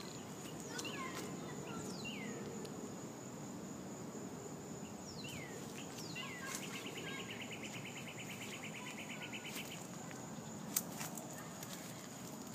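Outdoor ambience: a steady high-pitched insect drone, with birds giving several short falling whistled calls and a rapid trill lasting about three seconds. A single sharp click sounds near the end.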